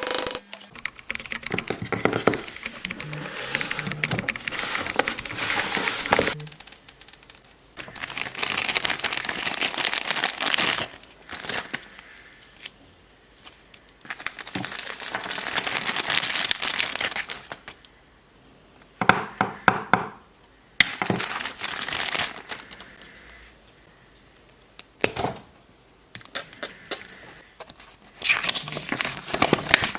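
Hands unpacking a toy kit: packaging rustling and crinkling in uneven bursts, with sharp clicks and knocks of small pieces handled and set down. A brief high chime of a few steady tones sounds about seven seconds in.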